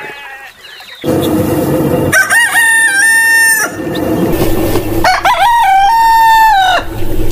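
A rooster crowing twice, each crow a drawn-out call lasting under two seconds, the second starting about three seconds after the first.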